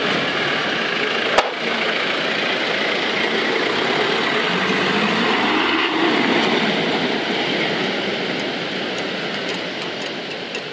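Toyota Land Cruiser jeep's engine running as the loaded vehicle drives off on a dirt road, revving up briefly around the middle and fading toward the end. A single sharp click about a second and a half in.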